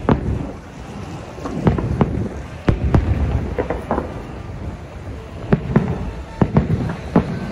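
Aerial fireworks bursting: about a dozen sharp bangs at irregular intervals over a continuous low rumble of echoing reports.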